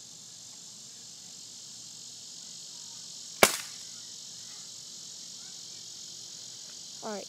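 A single sharp crack about three and a half seconds in: a Crosman 760 Pumpmaster pump-up air rifle firing a BB.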